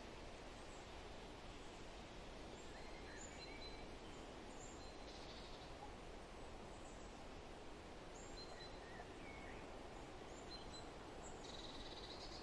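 Faint steady background hiss with scattered short, high bird calls, and a brief buzzy call twice, about five seconds in and again near the end.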